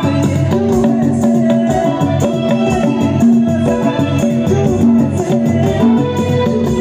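Live band music: electronic keyboard notes over a steady beat, with shaker-like rattling percussion.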